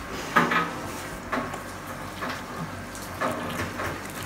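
Plastic squeeze bottle squirting sour liquid into a large pot of tomato sauce, in about four short sputtering squirts roughly a second apart, the first the loudest.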